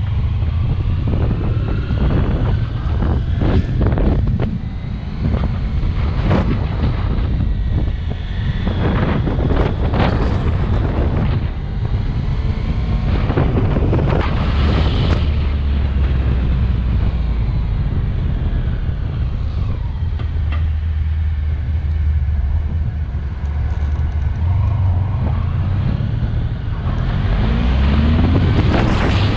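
Motorcycle riding along a street: the engine runs with a steady low hum under wind buffeting the microphone, and its pitch rises near the end as it speeds up.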